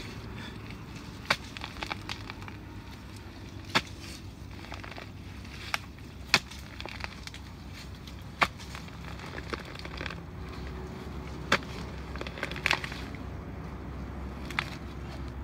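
Digging at a mangrove crab burrow: about ten sharp, irregular knocks and snaps as a digging tool strikes roots and mud, over a steady low rumble.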